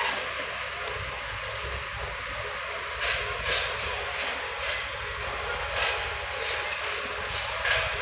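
Construction-site machinery running steadily, a low rumble under a constant hiss. From about three seconds in, short hissing bursts come every half second to a second.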